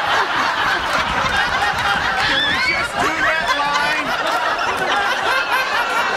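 Loud, sustained laughter from many people at once: a sitcom studio audience laughing at a flubbed take, with the actors laughing along.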